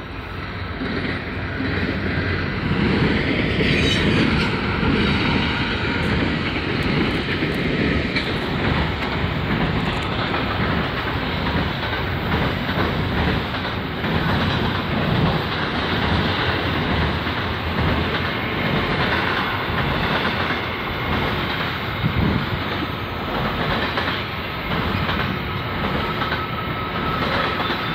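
Freight train rolling past close by: a steady rumble and clatter of wheels on the rails, building over the first few seconds and then holding. A thin high wheel squeal comes in near the end.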